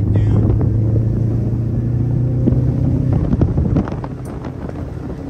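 Subaru WRX STI's turbocharged flat-four engine heard from inside the cabin, running at steady revs under way, then easing off about four seconds in as the level drops.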